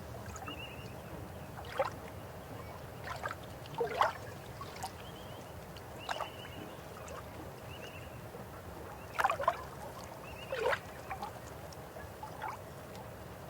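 River water running steadily, with about eight short, sharp sounds that sweep down in pitch scattered through it, the loudest about four and nine seconds in, and faint high chirps between them.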